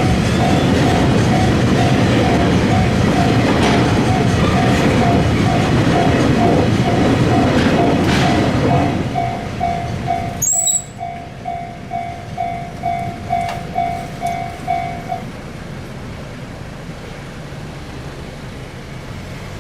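Japanese railroad crossing warning bell ringing in a steady repeating ding over the noise of a train passing through the crossing. The train noise cuts off abruptly about halfway, the bell rings on alone for a few seconds, then stops as the crossing clears.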